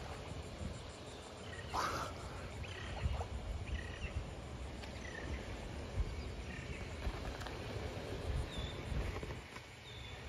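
Outdoor waterside ambience: wind rumbling on the microphone, with scattered short bird chirps in the background and a brief rushing puff about two seconds in.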